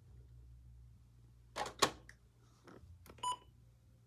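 Two sharp clicks about a second and a half in, then a single short electronic beep near three seconds, over a low steady hum.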